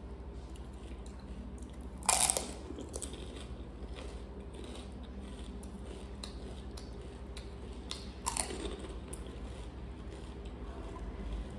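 Close-miked eating of pani puri: two loud crunches as whole crisp puris filled with pani are bitten, about two seconds in and again about eight seconds in, with softer chewing between.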